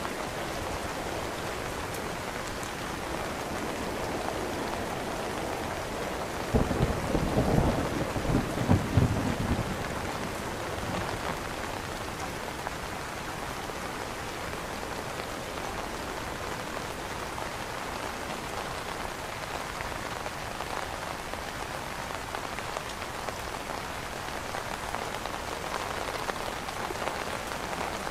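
Steady rain falling on an umbrella canopy. About six and a half seconds in, a low rumble of thunder swells over the rain for three or four seconds, then fades.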